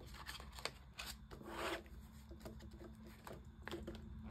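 Faint rustling and rubbing of polymer banknotes and a paper envelope being handled, with a few light clicks and one longer rustle about a second and a half in.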